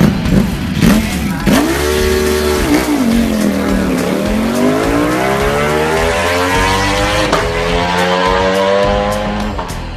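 High-performance engine running loud. Its pitch drops for the first few seconds, then climbs steadily as it accelerates.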